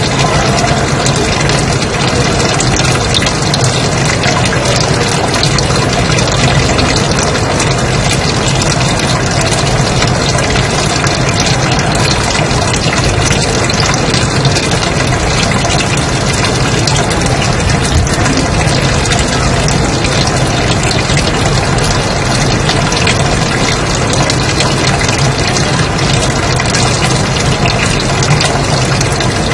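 Steady white noise: an even, unchanging hiss with no breaks.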